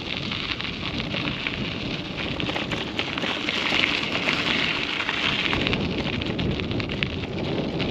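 Steady noise of riding a bicycle: wind rumbling on the microphone over a continuous crackling hiss from the tyres on the path.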